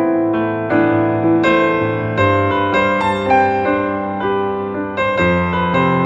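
Background piano music: a melody of struck notes, a few per second, over held low notes.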